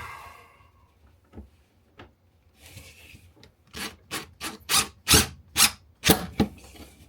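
Rough rasping, rubbing strokes, about a dozen in quick succession starting a little under four seconds in, from hand work on screws into the microwave oven's mounting bracket.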